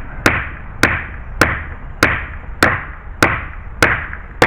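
A hammer striking in steady, evenly paced blows, about eight strikes less than a second apart, each with a short ring.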